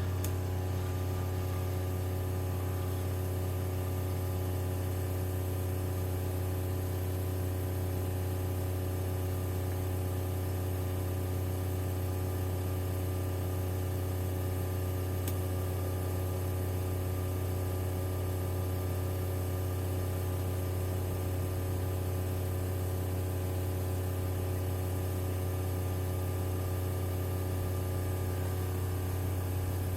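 Fuel injector flow bench running steadily with injectors flowing at 5 bar: an even hum from the bench's pump motor with a light hiss over it.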